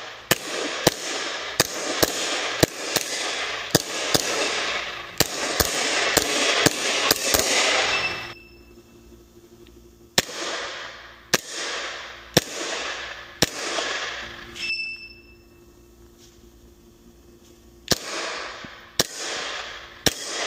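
Airsoft replica Glock trainer firing, sharp cracks each trailed by a short fading hiss: a rapid string of shots for about eight seconds, then four spaced shots, a pause, and four more. A short high electronic beep sounds twice during the pauses.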